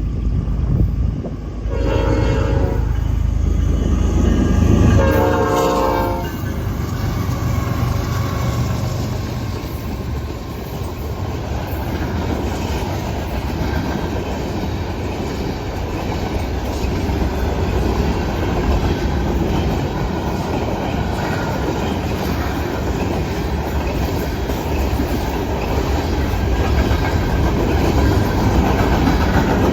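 Norfolk Southern freight train's locomotive horn sounds twice, a short blast about two seconds in and a longer one about five seconds in. Then the diesel locomotive and the manifest's freight cars rumble and clack steadily past on the rails.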